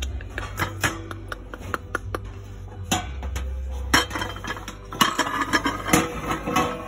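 Glass and ceramic dishes clinking and knocking together on a store shelf, a string of sharp clinks that grows busier about five seconds in, over a low steady hum.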